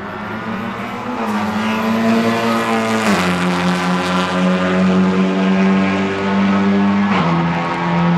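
Honda Civic Type R FL5 TCR race car's 2.0-litre turbocharged four-cylinder engine running hard as the car passes, its note dropping sharply twice, about three seconds in and near the end, with tyres hissing through spray on the wet track.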